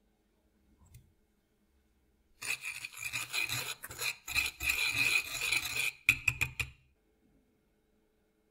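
Wire whisk stirring dry breadcrumbs around a plate: a steady gritty scraping for about three and a half seconds, ending in a few quick, sharp strokes.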